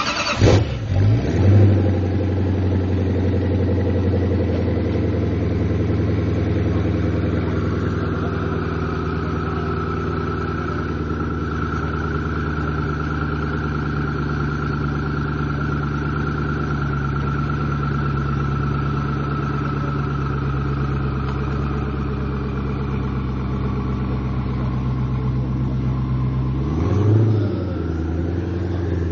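Koenigsegg Agera R's twin-turbo V8 just fired up: a couple of quick revs, then a steady idle. Near the end comes a single short blip of the throttle before it drops back to idle.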